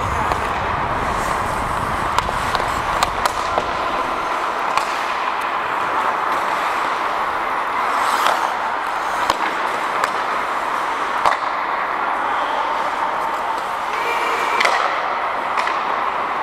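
Ice hockey play on the rink: a steady hiss of skate blades on ice, broken by scattered sharp clacks of sticks and puck.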